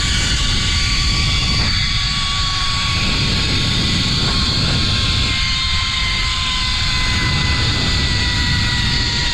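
Zipline trolley pulleys running along the steel cable, a steady whine that sinks slowly in pitch as the rider slows, over heavy wind rush buffeting the microphone.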